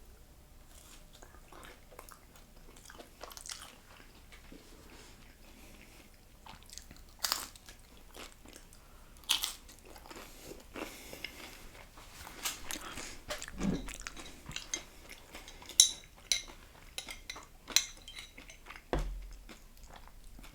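Close-up biting and chewing of a crunchy fried tostada shell with toppings: sharp crunches, sparse at first and coming thicker and louder in the second half.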